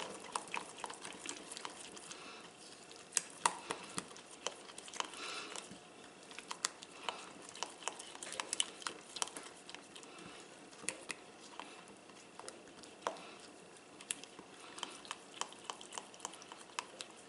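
Silicone spatula stirring a thick ketchup glaze in a glass bowl: faint wet stirring with many irregular light clicks.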